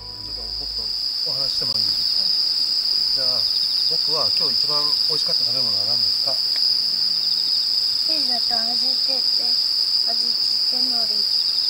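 Night insects chirring in one continuous high-pitched trill, with quiet voices of a man and a child talking over it.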